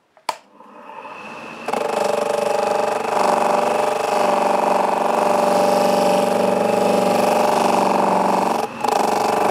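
Homemade polishing machine switched on with a click, its motor and slotted felt disc loaded with GOI paste spinning up, then running steadily with a hum of several tones while a metal ball is polished against the disc. The sound dips briefly near the end.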